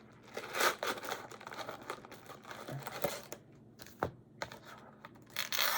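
Foil-wrapped trading card packs crinkling and rustling as they are pulled out of a cardboard retail box, with one sharp tap about four seconds in.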